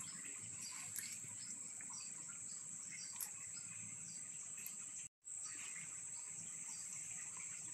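Steady high-pitched insect chorus with a few faint clicks. The sound cuts out for an instant about five seconds in.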